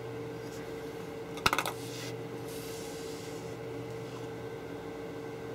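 A quick cluster of small, sharp clicks about a second and a half in, hard parts of a clear-tube assembly knocking together as it is handled, over a steady background hum.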